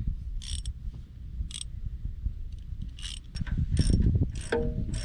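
Hand tools working on metal: a series of short, irregular clicking, ratcheting and scraping strokes over a low rumble of handling noise.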